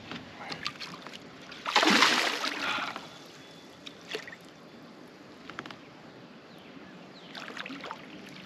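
A big hooked fish, which the angler takes for a buffalo, splashing at the water's surface beside a kayak, with one loud splash about two seconds in. Light clicks and knocks from the rod, reel and kayak hull come and go, more of them near the end as the fish comes alongside.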